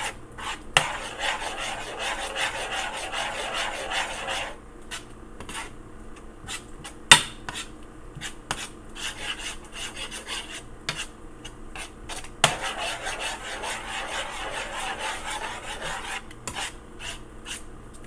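A utensil scraping and stirring a thick, cheesy dip in a pan, with two long stretches of continuous scraping and scattered lighter scrapes in between. A few sharp knocks against the pan stand out, the loudest about seven seconds in.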